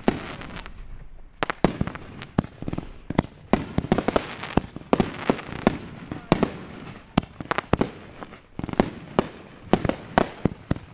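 Fireworks going off in rapid succession: many sharp bangs and crackles, several a second, after a brief lull about a second in.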